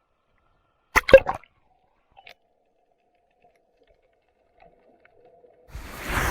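A brief splash of seawater about a second in, a few quick knocks close together, then near quiet with a faint thin hum. A rush of noise begins to build near the end.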